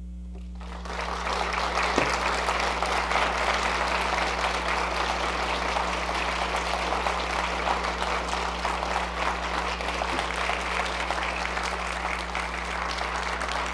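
Audience applauding: dense clapping starts about a second in and eases a little near the end, over a steady mains hum.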